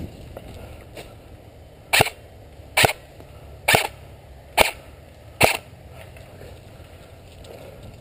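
Airsoft rifle firing five single shots, evenly spaced a bit under a second apart, each a short sharp crack.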